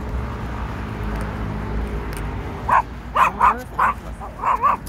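A small dog barks six times in quick succession, short high yaps in two clusters over the last two seconds, after a low steady rumble.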